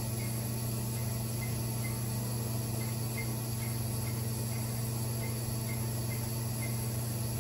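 Crystal microdermabrasion machine running: a steady low hum from its vacuum pump and motor while the handpiece is worked over the skin.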